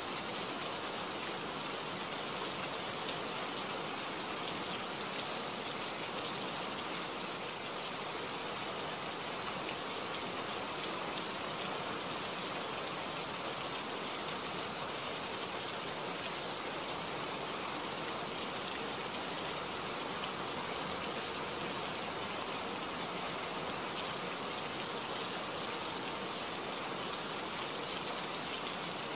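Steady rain falling in a forest, an even hiss with no let-up.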